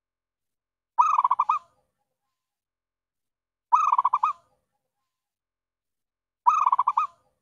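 Zebra dove (perkutut) calling: three short bursts of rapid staccato cooing, each about half a second long, about every two and a half to three seconds. It is a lure call used to draw wild zebra doves to a trap cage.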